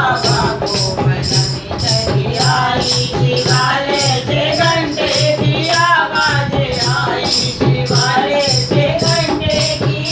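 Women singing a Hindi Shiv bhajan, with a rattling hand percussion instrument keeping a steady beat of about two strokes a second.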